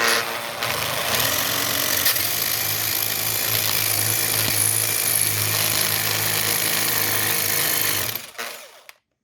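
Right-angle power drill boring out the stripped bolt hole in a cast iron vice jaw, ready for a 5/16 UNF helicoil. It runs steadily for about eight seconds, then winds down.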